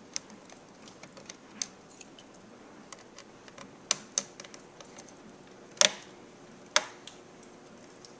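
Scattered small clicks and taps of a hand screwdriver and fingers on a laptop's plastic casing and keys while the keyboard's retaining screws are driven in, with a few sharper clicks around the middle.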